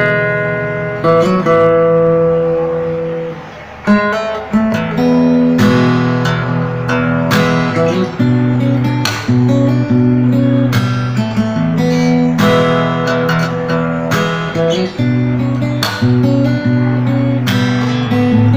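Acoustic guitar, a Jcraft Troubadour TS-216C freshly strung with D'Addario EZ910 light-gauge (11–52) strings, being strummed and picked in chords, with a new stroke about once a second.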